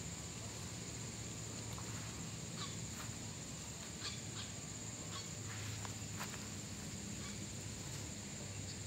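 Tropical forest ambience: a steady high-pitched insect drone, with a run of short, sharp bird calls in the middle.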